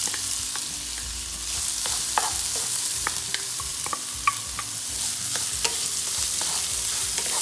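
Chopped onion, green chillies, curry leaves and ginger sizzling in hot oil as they are sautéed and stirred, with scattered light clicks of the stirring utensil against the pan.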